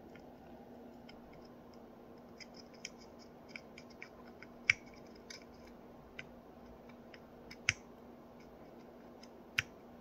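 Light, sparse clicks and ticks of a soldering iron tip and metal tweezers against a surface-mount chip's pins on a circuit board during hand soldering, over a faint steady hum. Three sharper clicks stand out: about halfway, about three quarters in, and near the end.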